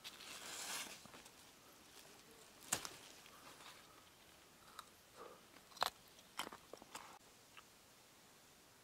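Faint rustling at the start, then a scattered handful of sharp clicks and snaps, the two loudest a few seconds apart.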